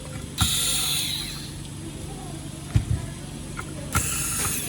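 Machinery running with a steady low hum. Twice, a knock is followed by a short hiss like an air blast: the first lasts about a second, the second about half a second near the end. A further knock comes in between.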